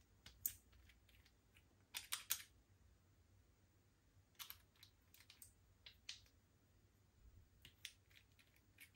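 Slime being pressed and mixed by hand, giving faint sticky clicks and pops in small irregular clusters.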